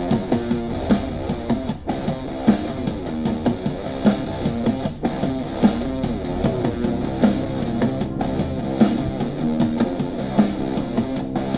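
Alternative or punk rock track with guitar played on a small Bluetooth speaker for a sound test.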